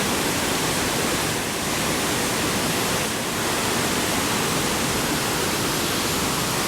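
Large waterfall crashing down, a steady, dense roar of falling water with the spray close by, swollen with rainy-season flow.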